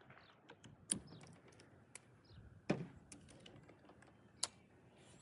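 Scattered light clicks and taps, with sharper ones about a second in, near three seconds and near four and a half seconds: the handling of the small 10 mm bolts and the tool while the trim is being refitted.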